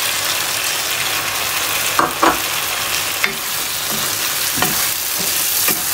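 Onion-tomato masala sizzling steadily in hot oil in a non-stick wok, with potato cubes just added. A few short knocks and scrapes of a spatula against the pan come through the sizzle.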